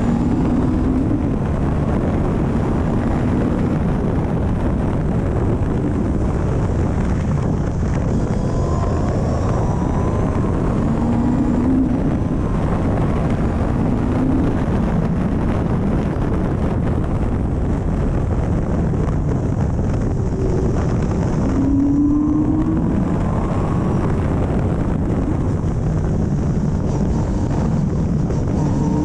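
Caterham CSR260's Ford Duratec four-cylinder engine running hard on a track lap, heard onboard. Its note climbs several times under acceleration and drops back between, with constant wind rush across the open cockpit.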